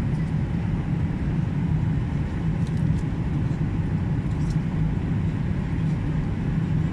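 Airliner passenger-cabin noise on the approach to landing: a steady low drone of engines and airflow, with a few faint ticks around the middle.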